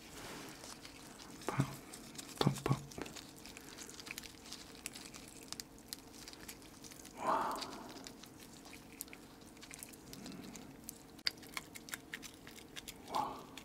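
Soy-sauce-marinated stone crab being pulled apart by gloved hands: small crackles and clicks of the shell. There are two short voice sounds about two seconds in.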